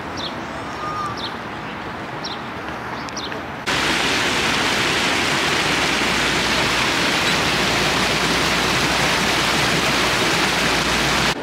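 Rows of small fountain jets splashing into a shallow pool, a loud, even rush of falling water that starts and stops abruptly. Before it, a few short high chirps over faint outdoor background.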